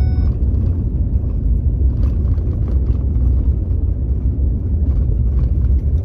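Steady low rumble of a vehicle driving across a field, heard from inside the cab, with a few faint rattles.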